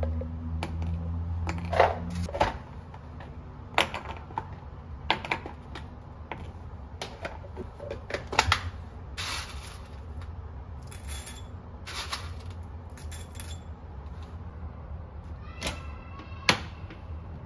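Clicks, taps and rustles of kitchen handling: plastic food-storage tubs and lids knocked and opened, and dried red dates dropped into a bowl. Near the end comes a loud single click as a plug is pushed into a wall socket.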